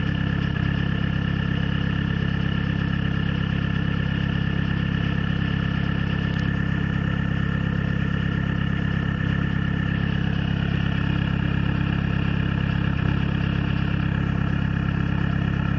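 Peugeot-Citroën XUD four-cylinder diesel engine idling steadily with a misfire, which the owner traced to a faulty glowplug and a weak battery; the misfire shows while the engine is cold.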